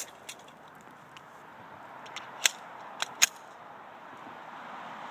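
A few scattered, distant gunshots: short sharp cracks at uneven intervals, two close together past the middle, over a steady background hiss.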